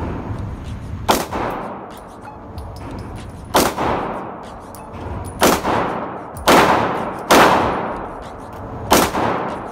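Six pistol shots fired one at a time at uneven intervals, each with a sharp crack and a ringing echo off the walls of an indoor firing range.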